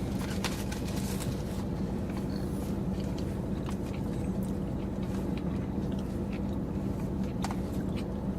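A person chewing a mouthful of cauliflower rice, with small, scattered clicks of eating, over a steady low hum.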